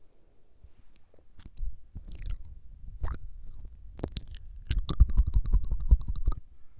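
ASMR mouth sounds: wet tongue clicks, scattered at first, then a fast run of tongue flutters for about a second and a half near the end.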